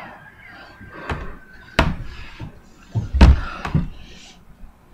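A few separate thuds and knocks, like a door banging: a sharp knock about two seconds in, then the loudest, deepest thump about three seconds in, with lighter knocks around them. A faint thin steady tone sounds through the first couple of seconds.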